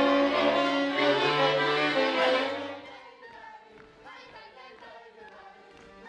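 Lively violin-led music from a small stage band, with melody notes over a low bass line. About halfway through it drops to a faint, sparse passage.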